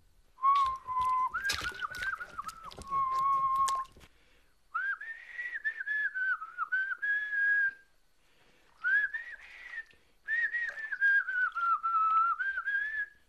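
A person whistling a tune in several short melodic phrases with brief pauses between them. Sharp knocks and clatter sound alongside the whistling during the first few seconds.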